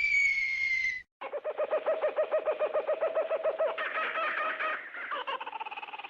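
Old cartoon sound effects: the tail of a falling whistle, cut off about a second in, then after a brief gap a rapidly pulsing, warbling pitched sound, about eight to ten pulses a second, that jumps higher around four seconds in and then glides down.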